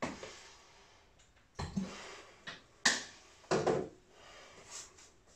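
A few short knocks and clicks with faint rustling, the loudest about three and a half seconds in.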